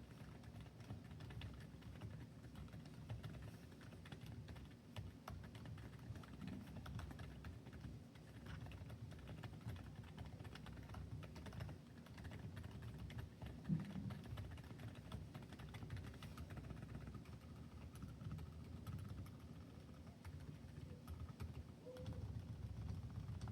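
Continuous typing on a Keychron Q6 Max mechanical keyboard with silent switches: TTC Silent Bluish Whites on most keys and Gazzew Boba U4s on the stabilized keys. The keystrokes are soft and muted, and one louder knock comes about 14 seconds in.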